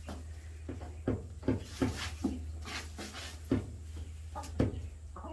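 Chickens and guinea fowl pecking and scratching in pine-shavings litter, with a scattering of short, sharp pecks and low clucks at irregular intervals.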